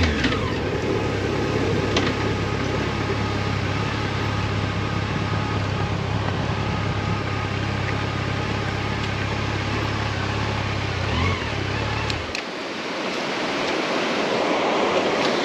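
Motorcycle engine running steadily under way, mixed with wind rush on the helmet-mounted microphone. About twelve seconds in the engine drone cuts off suddenly, leaving only a steady rushing noise.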